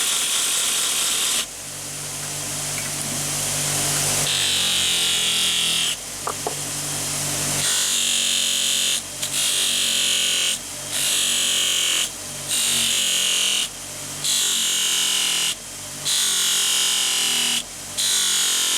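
Hand-held power tool polishing metal parts: a motor running with a strong high hiss from the polishing, stopping briefly and restarting about every two seconds in the second half.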